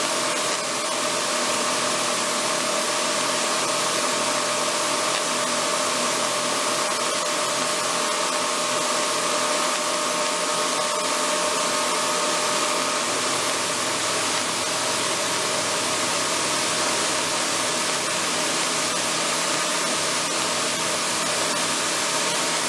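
AeroTrek A240 light sport aircraft's engine and propeller running at steady power in flight, heard inside the cockpit as an even drone with a steady hiss over it.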